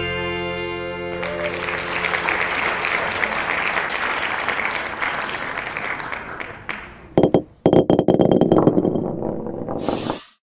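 A country song's last chord rings out, then a crowd of dancers applauds and cheers. Near the end come a few sharp knocks and a brief rush of noise before the sound cuts off.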